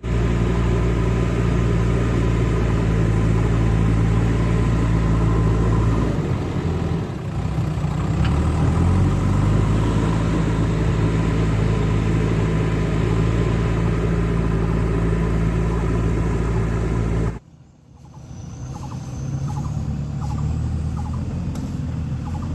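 JCB 3DX backhoe loader's diesel engine running steadily, its pitch dipping and then rising again between about six and nine seconds in as if revved. About seventeen seconds in the sound drops out abruptly, then the engine comes back quieter.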